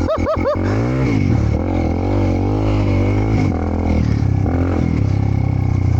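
Honda CRF300L's single-cylinder engine revving under load as the bike is ridden through deep mud. A quick run of short throttle blips comes in the first half-second, then the engine note wavers up and down over a steady low drone.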